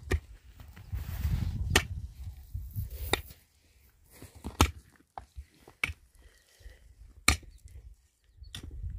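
Pickaxe striking into stony soil: six sharp blows, roughly one every second and a half, with lighter knocks between.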